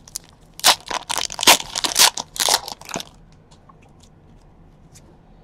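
Card packaging crackling and crunching as it is handled and pulled apart, a quick run of sharp crackles and snaps for about three seconds that then stops.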